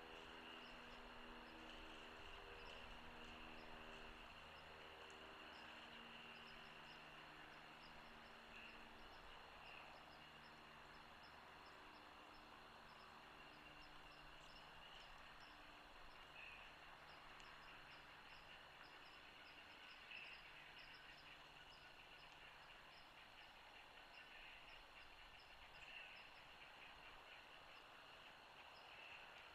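Near silence: faint outdoor ambience with a steady hiss, and a few faint short high calls now and then.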